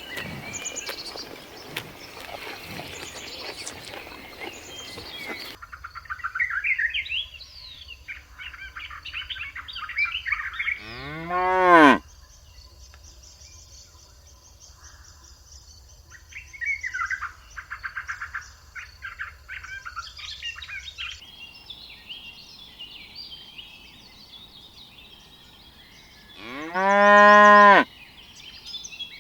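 Two cows mooing, one call a little over a third of the way in and a second, slightly longer one near the end; each rises then falls in pitch. Small birds chirp between the moos.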